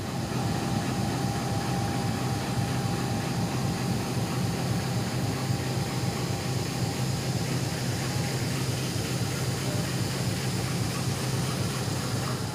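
Steady low hum of a stationary diesel-hauled passenger train standing at the platform, its engines idling, with a faint steady whine over it.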